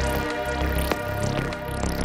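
Electronic background music: synth sweeps rising and falling over a pulsing bass.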